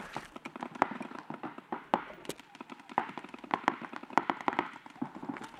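Paintball markers firing: a string of sharp pops at irregular spacing, several a second at times.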